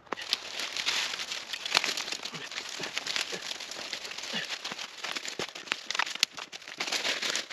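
Dry leaves crunching underfoot and sticks cracking and rattling as debris is picked up by hand from the forest floor: an irregular run of crackles and small snaps.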